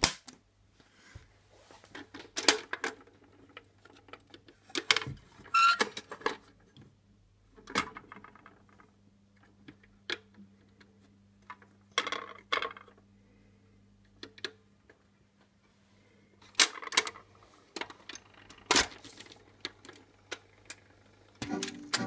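Mechanical clicks and clunks from a Bush SRG 91 valve radiogram, its piano-key selector buttons being pressed and its record changer working to set a 78 on the turntable, as a dozen or so irregular knocks over a steady low hum. Music from the record starts right at the end.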